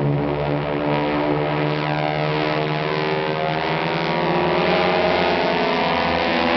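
A formation of propeller-driven aerobatic aircraft droning overhead: a steady, many-toned engine drone that grows a little louder in the second half.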